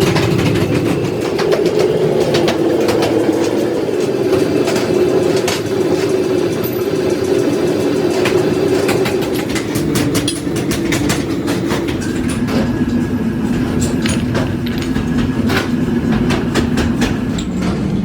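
Forging-workshop machinery running with a steady drone, and frequent irregular metallic clanks and clicks on top.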